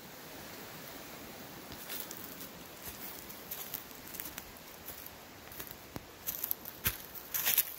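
Footsteps crunching and rustling on dry forest leaf litter, irregular, growing louder and denser near the end.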